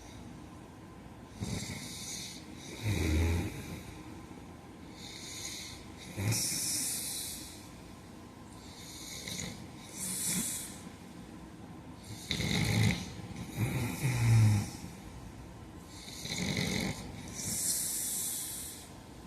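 A man snoring in his sleep: about five breaths, one every three to four seconds, each a low snore followed by a hissing breath.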